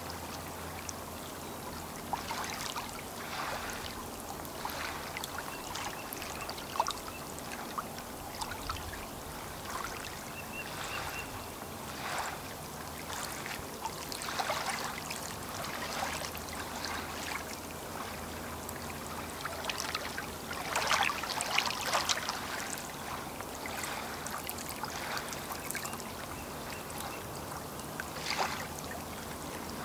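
Small lake waves lapping and splashing irregularly against the shore, with a cluster of louder splashes about twenty seconds in.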